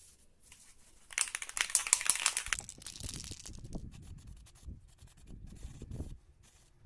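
Aerosol spray-paint can hissing as paint is sprayed onto a plastic jar, loudest from about a second in to two and a half seconds, then softer and uneven, with low rumble from wind on the microphone.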